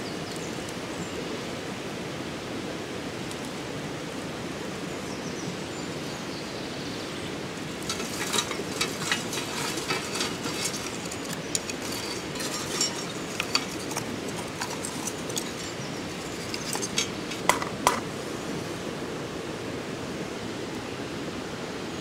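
Dry twigs and brushwood being snapped and handled for kindling: irregular sharp cracks and snaps from about 8 to 18 seconds in, over a steady background hiss.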